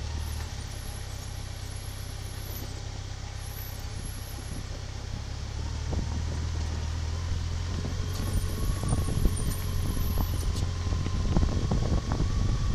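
A motor vehicle running with a steady low rumble that grows louder about halfway through, with rattling knocks becoming frequent near the end.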